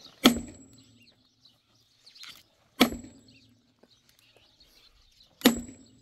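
Sledgehammer blows on a dry log, three heavy strikes about two and a half seconds apart. Each strike is sharp and leaves a brief metallic ring.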